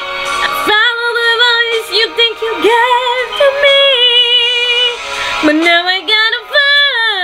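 A woman singing solo: long held notes with heavy vibrato and sliding wordless runs. There is a brief breath about a second in.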